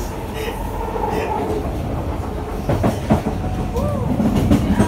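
SMRT Siemens C651 train running, heard from inside the carriage: a steady rumble of wheels on rail that grows slightly louder, with a couple of clacks about three seconds in.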